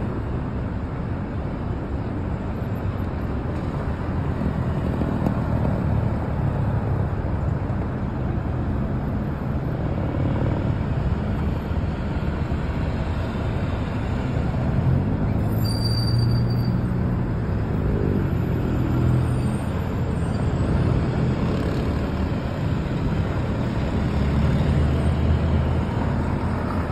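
Steady traffic on a multi-lane avenue: city buses and cars driving past. A heavy engine grows louder about halfway through and revs up as it pulls away, and another heavy vehicle swells past near the end.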